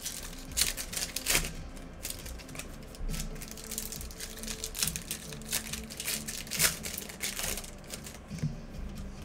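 Trading cards and pack wrappers being handled as packs are opened and the cards flipped through: a run of quick, irregular papery clicks and snaps.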